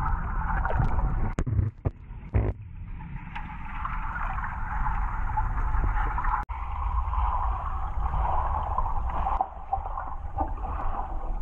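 Muffled underwater sound in a swimming pool: a steady low rumble and a hiss of moving water, with a few sharp knocks in the first couple of seconds.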